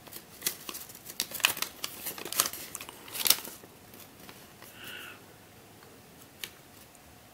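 A folded paper instruction leaflet being unfolded by hand: crisp crinkling and crackling of the paper through the first three seconds or so, then quieter handling with a single light click near the end.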